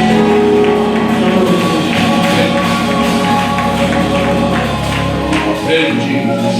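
Live gospel praise music from a church band: sustained chords with singing and a tambourine keeping the beat. A low held bass note drops out near the end.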